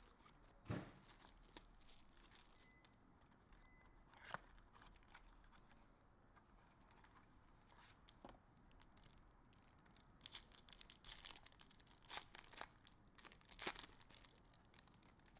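Faint crinkling, rustling and tearing of trading card packaging being opened by hand, with scattered clicks and handling noises that grow busier in the last few seconds.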